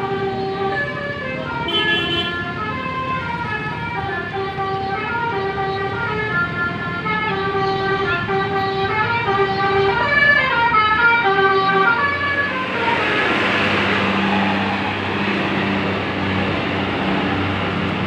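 Basuri telolet multi-tone bus air horn playing a stepping multi-note tune, over and over, for about twelve seconds. Then the tune stops and a steady noisy rush with a low hum takes over.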